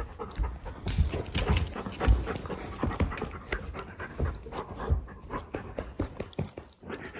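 Golden retriever panting hard while it noses under an ottoman after a ball, with repeated dull thumps and knocks as it bumps and paws against the furniture and floor.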